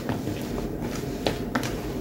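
A few soft clicks and taps as seasoned chicken pieces are put into a bowl of flour and turned to coat them, over a steady low hum.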